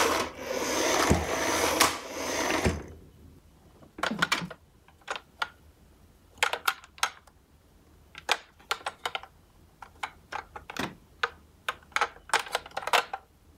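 Plastic toy ambulance rolling across a wood-laminate floor, a steady rolling noise of its plastic wheels that stops about three seconds in. After that come scattered small clicks and knocks of the plastic toy being handled and turned in a cardboard box.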